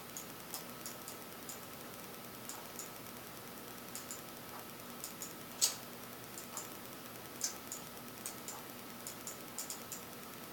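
Scattered clicks of a computer mouse, irregular and a few a second, two of them louder about halfway through, over a faint steady hum.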